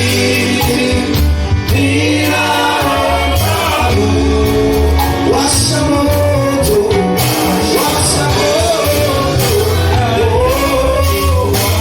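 Worship song: singing voices over band accompaniment with a strong, steady bass and regular drum strikes.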